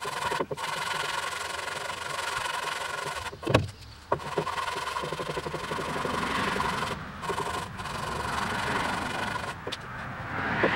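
1000-grit sandpaper rubbed by hand over primed sheet metal on a truck cab, a steady scratchy rasp with brief pauses between passes. There is a short sharp knock about three and a half seconds in.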